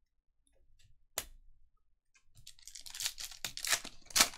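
One sharp click about a second in. Then, from about halfway, a foil trading-card pack wrapper crinkles and crackles in the hands as it is opened, with sharp crackles loudest near the end.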